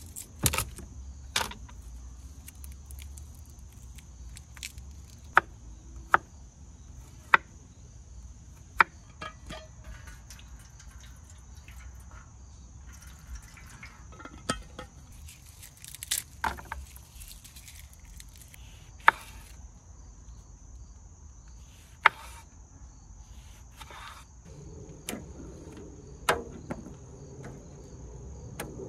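A knife cutting lemon on a wooden cutting board, with sharp knocks and clicks every second or few as the blade and kitchen things are set down, over a steady high insect drone.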